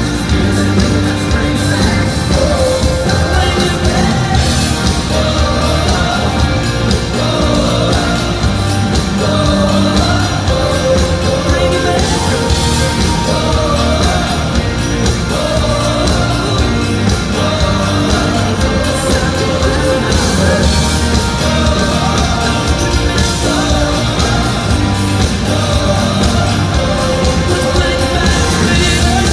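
Live rock band playing loud through a concert PA: drums, bass and electric guitars, with singing over the top, heard from the audience.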